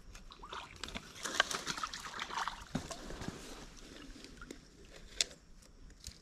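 Rustling and scuffing of someone in rubber boots moving about and settling down on a muddy, grassy bank, with a few wet, splashy sounds. A sharp click stands out about five seconds in.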